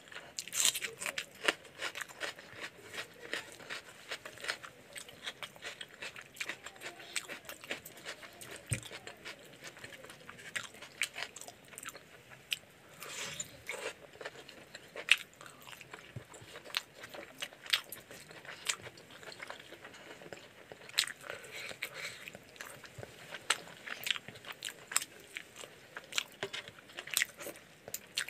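Close-miked chewing of chicken curry and rice eaten by hand: a continuous run of sharp mouth clicks and smacks.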